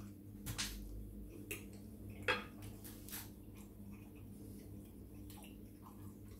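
Eating sounds: a few scattered soft clicks of a metal fork against a ceramic plate, with mouth sounds of chewing pasta, over a faint steady hum.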